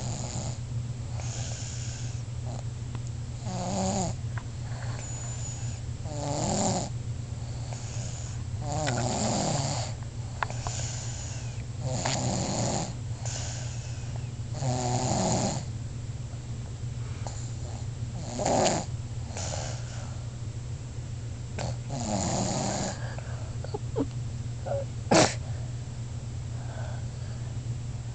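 Congested snoring from a bad cold: a drawn-out rasping snore every three seconds or so, with a short sharp snort near the end.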